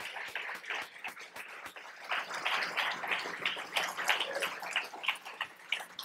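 Audience applauding, a dense patter of clapping that grows a little louder about two seconds in.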